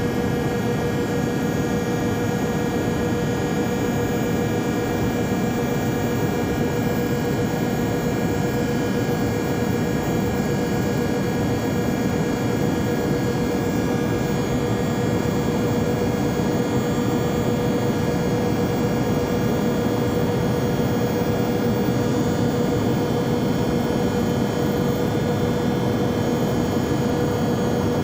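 Interior cabin sound of a Learjet business jet in flight: a steady rush of engine and air noise with a constant whine, unchanging throughout.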